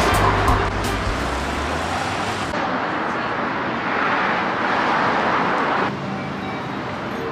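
City street traffic: a car driving past with a low engine and tyre rumble that fades after about two seconds, then steady street noise that swells for a couple of seconds in the middle and drops off suddenly.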